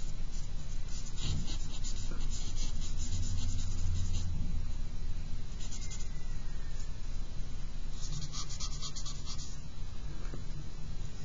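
Charcoal scratching across paper in short bursts of drawing strokes, over a low steady hum.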